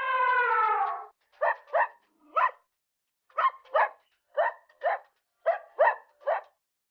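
A long, slightly falling held call ends about a second in, followed by a dog barking: about ten short, sharp barks, mostly in quick pairs, with gaps between.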